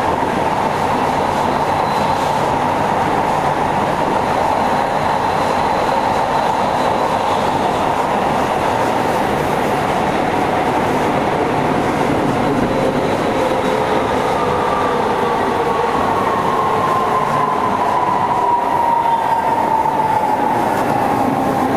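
Kyoto Municipal Subway 50-series train running, heard from inside the car: a steady rumble and rail noise, with a whine that slides slowly down in pitch over the last several seconds.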